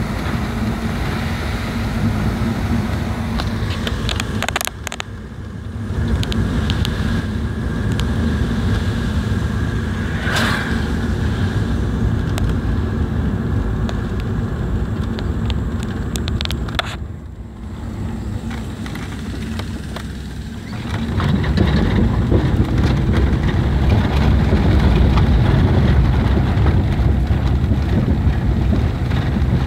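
Car cabin noise while driving: a steady low rumble of tyres and engine. It dips briefly twice and grows louder for the last third, as the car rolls onto a dirt or gravel road.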